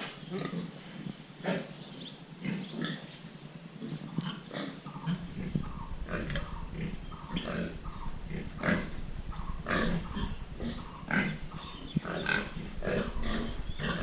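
Several pigs grunting and calling in short, irregular, overlapping calls. A low steady rumble joins about five seconds in.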